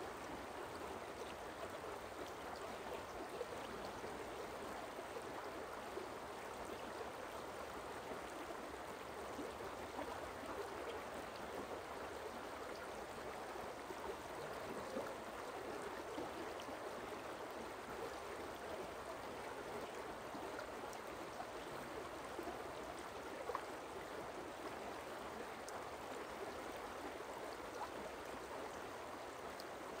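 Forest stream running, a steady rush of water.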